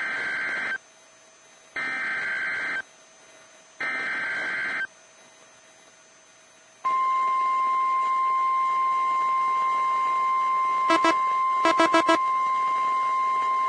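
NOAA Weather Radio Emergency Alert System signal: three one-second bursts of SAME digital header tones, about a second apart, followed from about seven seconds in by the steady 1050 Hz weather-radio warning alarm tone that announces a warning, here a tornado warning. A few short blips cut across the tone near the end.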